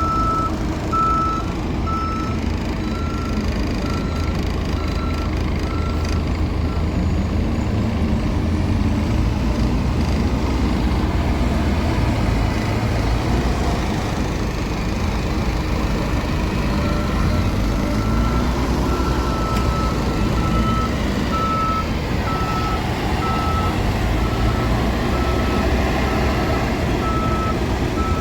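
JCB 3DX backhoe loader's diesel engine running steadily, with its reversing alarm beeping about twice a second. The beeping stops after about six seconds and starts again past the middle, while the engine note rises and falls a little.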